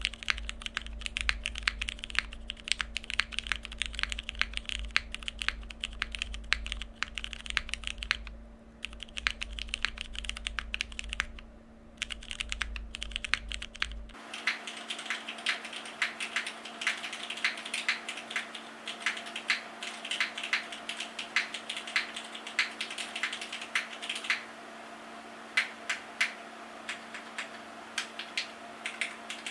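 Typing on a Frog mini mechanical keyboard with lubed and filmed vintage Cherry black linear switches on an aluminium plate with no foam, under OEM-profile keycaps: quick, steady key clacks. About halfway through the sound turns thinner and brighter. Near the end it slows to spaced single presses of the Cherry-stabilized long keys.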